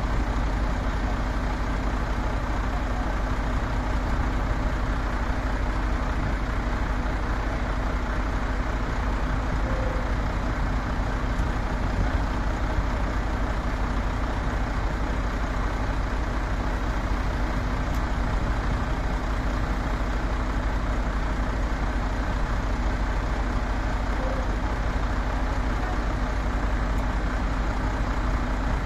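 Heavy diesel engine idling steadily, a constant low hum that does not change.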